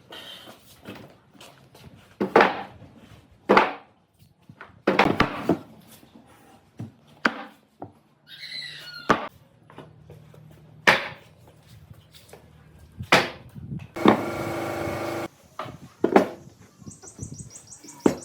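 Irregular knocks on wood, about nine strikes one to two seconds apart. A steady buzz lasting about a second comes between them near the end.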